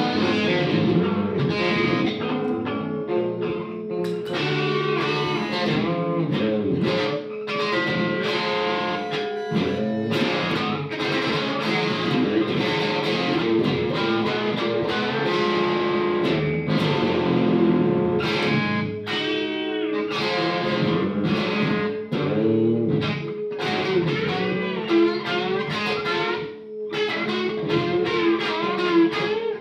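Telecaster-style electric guitar played live, strummed and picked hard in quick, choppy strokes, with a few brief breaks.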